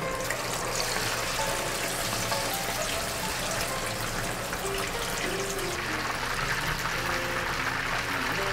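Chicken pieces in a potato-starch-and-water batter deep-frying in a wide pot of hot oil: a steady, dense sizzling crackle.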